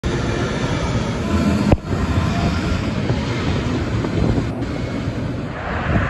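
Steady road traffic noise from passing vehicles, with wind buffeting the microphone. One sharp click about two seconds in.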